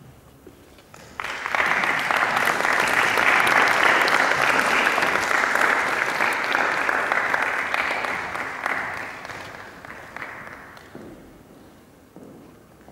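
Audience applauding: the clapping starts suddenly about a second in, holds steady, then tapers off and dies away around ten seconds in.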